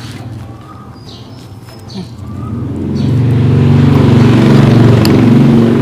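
A motor vehicle's engine coming closer and running loud, swelling from about two seconds in and holding steady for the last few seconds.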